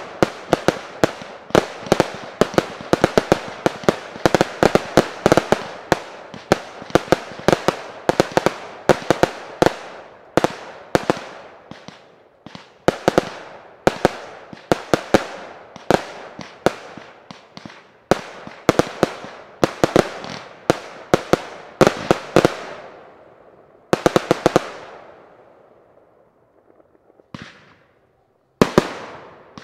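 Fireworks display fired from batteries: a fast barrage of sharp bangs, several a second. It thins out and dies away a few seconds from the end, then a few more bangs go off near the end.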